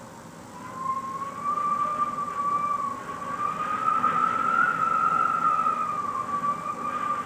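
Wind whistling through a gap in a cottage window: a high, wavering whistle that swells in a gust about a second in, rises and falls in pitch, and dies away near the end, over a steady rushing of wind.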